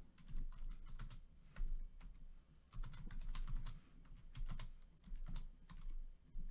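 Irregular runs of quick light clicks and taps, with soft low thumps beneath them.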